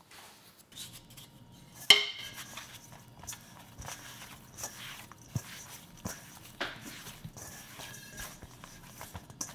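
Yeast dough being kneaded by hand in a stainless steel mixing bowl: irregular soft squishes, rubs and light knocks against the metal. About two seconds in, a sharper knock sets the bowl ringing briefly.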